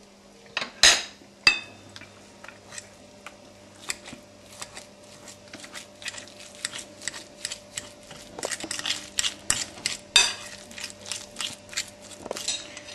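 Metal fork clinking and scraping against a glass bowl while mashing and mixing ricotta into beaten egg and grated cheese: a fast, irregular run of small clinks, with a few sharper knocks about a second in and around ten seconds in.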